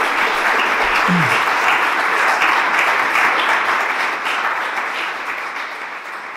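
Audience applauding, a dense crackle of many hands clapping that dies away over the last couple of seconds.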